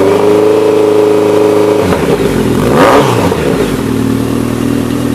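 Exhaust note of a Honda CB1100's air-cooled inline-four through a VooDoo shorty reverse-cone megaphone muffler. The engine is held at raised revs, drops back about two seconds in, is blipped once near three seconds, then settles to a lower, steady idle.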